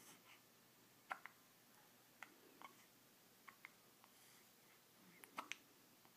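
Hiccups: faint, short, sharp hic sounds, several of them coming in quick pairs, with the strongest cluster about five seconds in.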